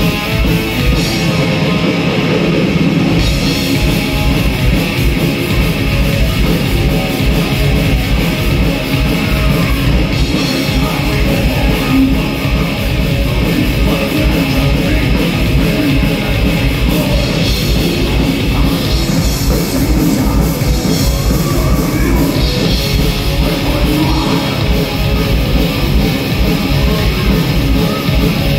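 Live heavy metal band playing loud: distorted electric guitar over bass and fast, driving drums, with no vocals.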